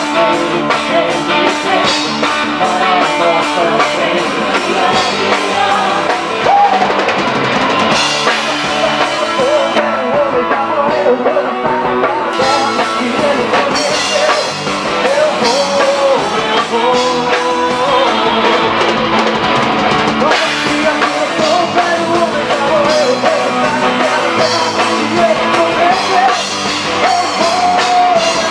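A forró band playing live: a drum kit keeps the beat under guitar, with a voice singing the melody.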